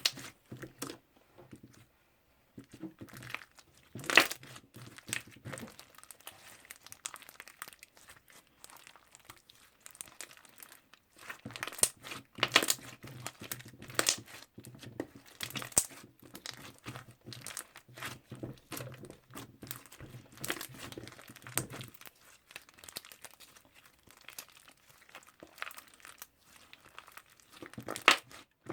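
Toffee slime being squished and stretched by hand: irregular crinkly crackling with scattered sharper clicks and pops.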